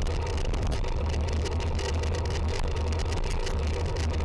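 Steady wind and road rumble on a handlebar-mounted camera's microphone as the bicycle rolls along, with motor traffic alongside.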